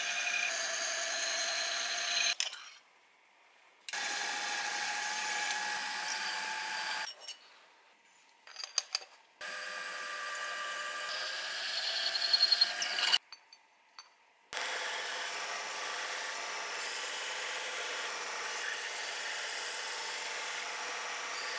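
Machine tools cutting aluminium plate. A milling machine drills in three short takes with a steady whine, split by brief silences and a few clicks. From about two-thirds of the way through, a band saw cuts the plate with a steady, even sound.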